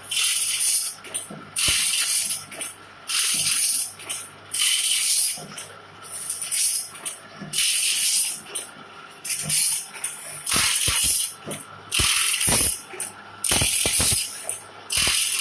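Bandsaw blade sharpening grinder working along a sawmill blade, the stone grinding one tooth after another in a steady rhythm of hissing grinds a little over a second apart, over a steady motor hum.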